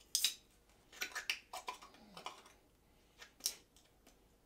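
Light metallic clinks and scrapes as a hammer works at the top of an aluminium drink can: a handful of short, irregular taps, with the clearest near the start, about a second in, and a lone one past the three-second mark.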